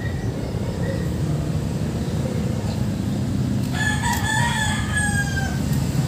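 A rooster crowing once, a single call of about a second and a half in the second half, over a steady low rumble.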